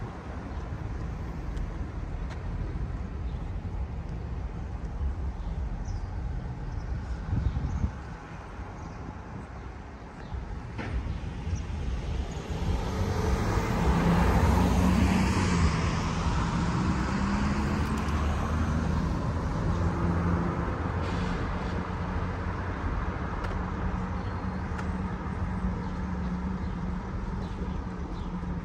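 Road traffic with a steady low engine rumble; one vehicle passes close and is loudest about halfway through, after which a low engine hum carries on.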